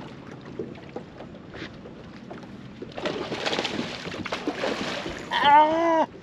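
Light water and wind noise around a boat with small knocks, swelling into a louder rush of noise about three seconds in. Near the end comes a man's drawn-out, wavering vocal exclamation, the loudest sound.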